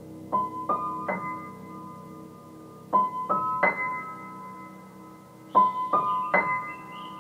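Background piano music: a slow three-note figure played three times, each note struck and left to ring.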